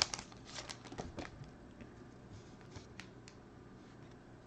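Faint handling of a stack of freshly unwrapped Panini Prizm football cards: soft slides and light clicks as the cards are squared up and thumbed, with one sharper click about three seconds in. It follows the last crinkle of the foil pack wrapper at the very start.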